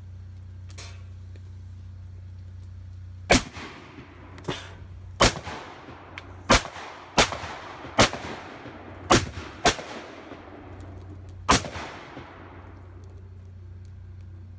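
A series of about nine loud, sharp explosive bangs, irregularly spaced over some eight seconds, each followed by a long echoing tail, as a fuel-rigged computer is set off.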